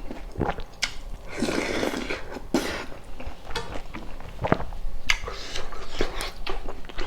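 Close-miked eating sounds: chewing and biting, with irregular sharp clicks of utensils against dishes. A short hissing, rustling stretch comes about a second and a half in.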